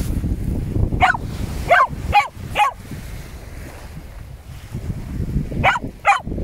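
A dog barking in short, high barks that fall in pitch: four in quick succession starting about a second in, then two more near the end, over a low rumble of surf and wind.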